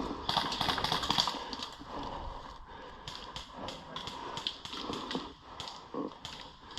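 Airsoft gunfire: a quick cluster of shots, then a string of sharp single shots at about four to five a second.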